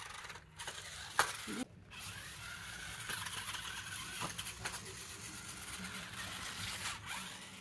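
Small electric drive motors of a toy RC rock crawler whining steadily as it drives, with clicks and knocks from the chassis and tyres; one sharp click about a second in.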